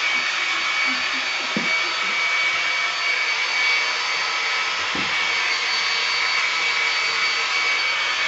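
Handheld hair dryer running steadily, a loud rush of air with a constant high whine from its fan motor.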